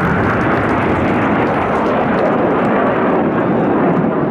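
Loud, steady jet noise from a formation of aerobatic display jets flying overhead.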